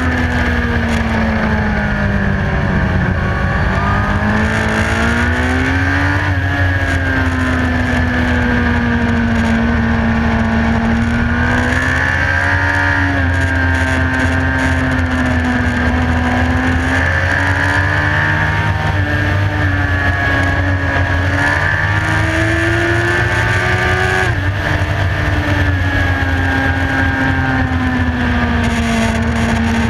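Track-ridden motorcycle engine at high revs, heard from on board. Its note climbs and drops repeatedly with throttle and gear changes, with a sharp drop about 24 seconds in, over a steady low rumble of wind on the microphone.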